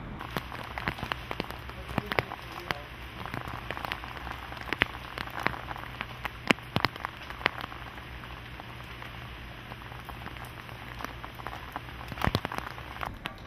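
Rain dripping: scattered, irregular drops landing on a hard wet surface, thickest through the first half and again near the end, over a faint steady background hiss.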